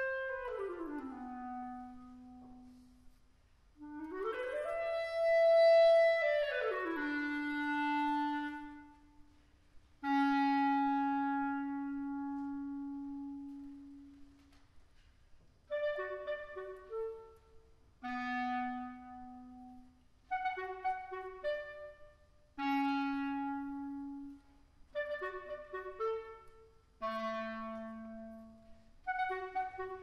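Clarinet playing a solo passage: two slow glides up to a high note and back down, each settling onto a long held low note, then short quick phrases broken by brief pauses from about halfway.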